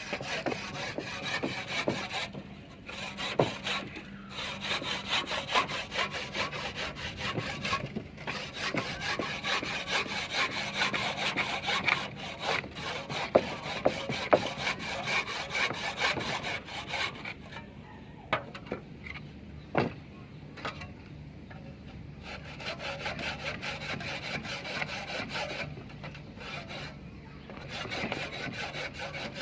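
A saw cutting through a red clay brick, grinding away steadily with a few short breaks, and going quieter for a while after about 17 seconds.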